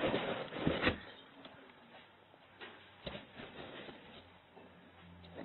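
Rustling and scratching of a bag as a cat moves with it, loudest in the first second. It is followed by a few soft taps and a faint low hum near the end.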